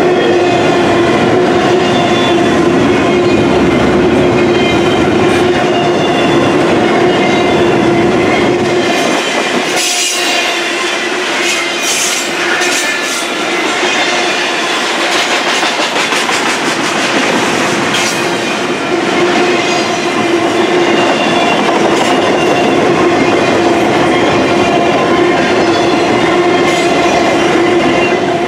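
Double-stack intermodal freight cars rolling past: steady wheel-on-rail noise with a sustained tone over it. The tone fades out for several seconds midway, while a run of clicks and clacks from the wheels comes through, then returns.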